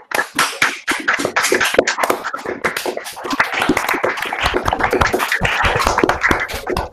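Applause: several people clapping at once, a dense irregular patter of hand claps coming through a video call's audio.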